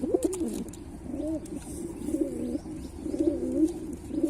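Pilkha pigeon cooing: a run of low, wavering coos that rise and fall in pitch, about one a second.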